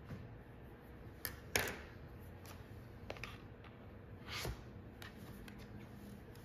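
Hands handling an iPad Pro in its cardboard box: a few light clicks and taps, the sharpest about a second and a half in, then a short brushing swish as the tablet is lifted out of the box.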